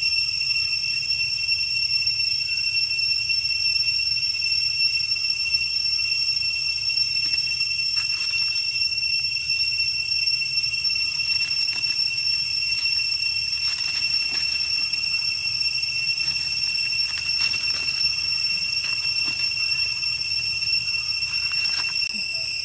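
A steady, high-pitched whistling tone that holds one pitch without a break, with a weaker tone an octave above it. Faint scattered clicks run underneath, mostly in the second half.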